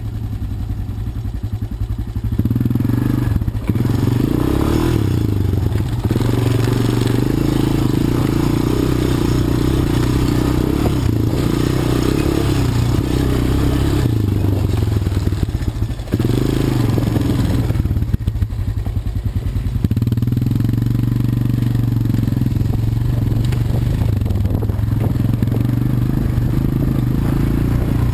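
An ATV engine running as the quad is ridden. It gets louder about two seconds in and eases off briefly about two-thirds of the way through.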